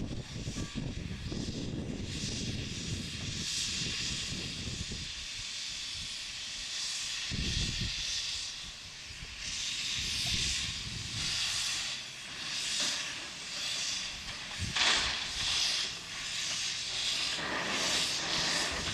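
Erie Type A steam shovel working: a low rumble of its machinery with steam hiss for the first few seconds, then a series of hissing exhaust puffs of steam, roughly one a second.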